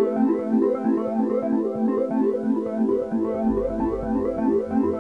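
Background music: a synthesizer or keyboard melody in a steady rhythm, with a low bass line coming in about three seconds in.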